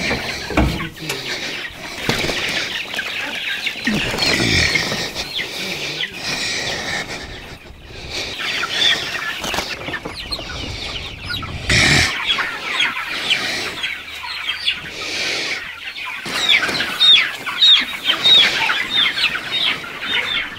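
A crowd of chicks peeping in plastic transport crates, many short high falling peeps, thickening over the last few seconds. Crates being handled and set down give a few knocks, the loudest about twelve seconds in.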